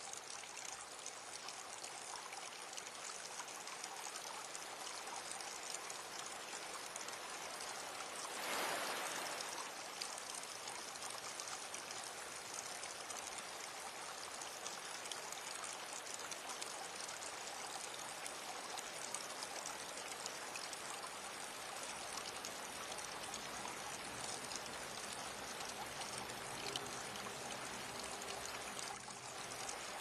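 Water of a small waterfall pouring and rushing over rocks in a steady, even stream, with a brief louder surge about nine seconds in.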